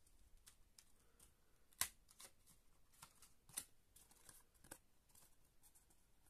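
Faint handling noise of a Blu-ray SteelBook case and a stack of printed art cards: light clicks and rustles of card, with a sharper click a little under two seconds in and another about three and a half seconds in.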